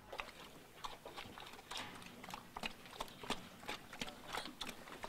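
Pigs eating from a feed trough: a quick, irregular run of faint clicks and smacks from their chewing and snouts working the feed.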